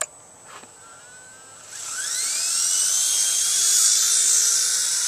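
Small radio-controlled helicopter spooling up: about two seconds in, its motor whine rises quickly in pitch along with rotor noise, then levels off into a steady, loud high whine.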